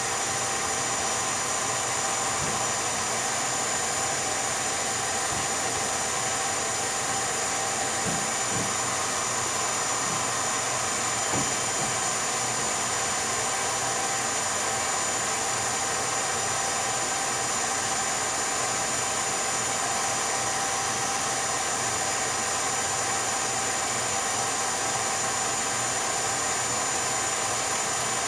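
Steady hiss and hum with a few fixed tones and a few faint clicks, unchanging throughout: background noise on the transfer of a silent 8mm home movie.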